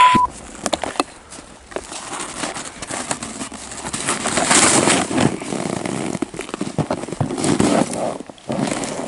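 Plastic sled scraping and crunching over snow, uneven and swelling twice, as hands push it along through the snow. A short electronic beep at the very start.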